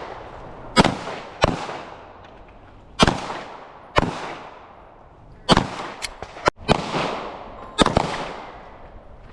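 Gunshots at a shooting range, about seven shots at uneven intervals, each followed by a long echoing tail, with a few fainter clicks between them.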